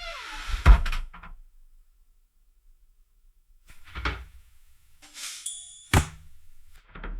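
A sterilizer door being opened three times in separate takes. Each take is a short hiss or rush followed by a sharp metallic clunk of the latch and door. The first clunk, about a second in, is the loudest and comes with a brief falling squeak; the others come around four and six seconds in.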